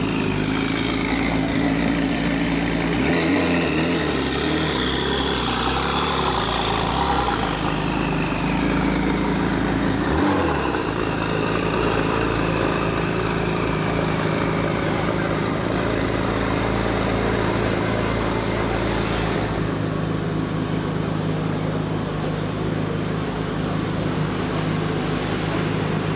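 Gemballa Avalanche BiTurbo's twin-turbo flat-six engine idling steadily.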